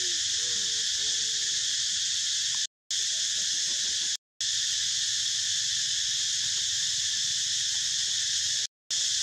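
Steady, high-pitched insect chorus droning without a break, with a few faint wavering low calls in the first second or so. The sound cuts out briefly three times.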